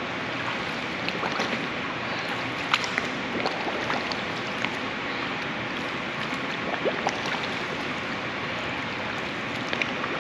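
Pool water sloshing, with scattered small splashes and drips, as a swimmer standing in the water makes freestyle arm strokes and dips her face in to exhale, over a steady watery hiss.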